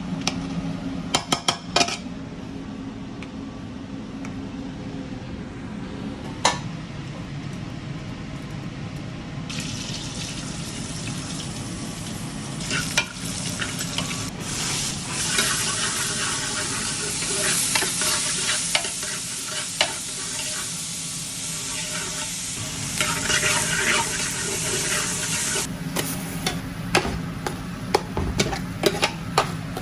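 Food frying in a pan: a steady sizzle with stirring and scattered knocks and clinks of utensils. The sizzle gets louder and brighter about ten seconds in.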